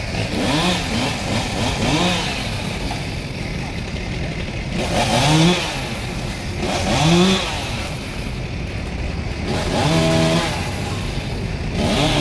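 Chainsaw revving in short blips, its pitch rising and falling four or five times, then holding a steadier note about ten seconds in.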